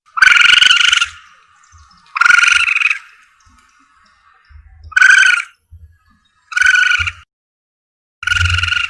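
Civet lure call: a harsh, screechy animal call repeated five times, each about half a second long, roughly every one and a half to two seconds.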